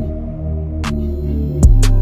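Background electronic music: sustained synth chords with a sharp hit about a second in, then a heavy deep bass drop comes in near the end and the music gets louder.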